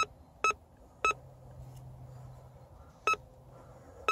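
Metal detector giving short, sharp beeps, about four or five at irregular intervals, as its coil passes over a dug hole: it is signalling a metal target still in the hole.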